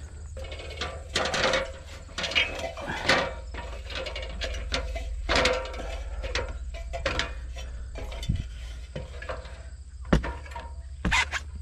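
Aluminium extension ladder clanking and creaking as someone climbs it: footsteps and knocks on the metal rungs, some with a short metallic ring, over a steady low rumble.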